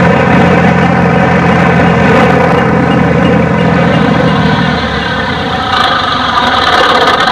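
Single-engine light aircraft's piston engine and propeller droning steadily as the plane touches down. About five seconds in the lowest part of the drone drops away and the sound changes.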